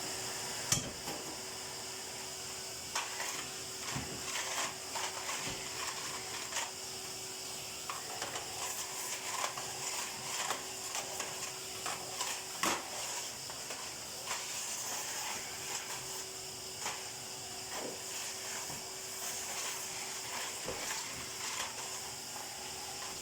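Steady hum of a vacuum cleaner running, with many scattered knocks, clicks and clatter of objects being handled or bumped.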